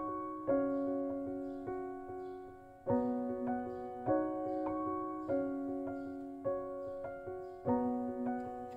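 Background piano music: soft chords struck about every second and a bit, each ringing on and fading before the next.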